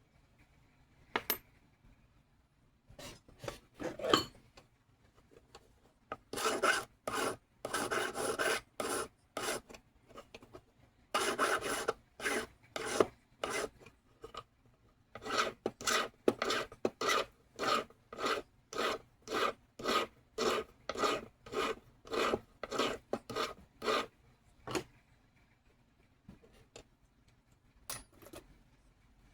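Jeweler's hand file rasping on a piece of metal in repeated back-and-forth strokes, about two a second, in several runs with short pauses between them.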